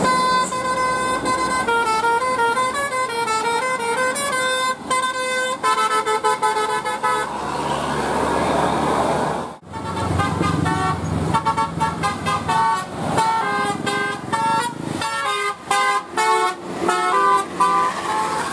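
Bus 'telolet' multi-tone air horn playing melodies: a tune of held notes stepping up and down, then a couple of seconds of rushing noise without notes and an abrupt cut, then a second, quicker tune of short choppy notes.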